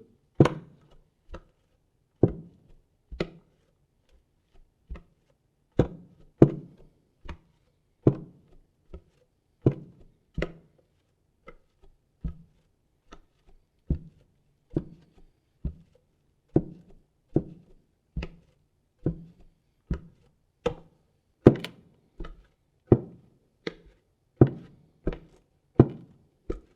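Bare feet walking on a wooden floor: a dull thud with each step, about one step a second, uneven in strength.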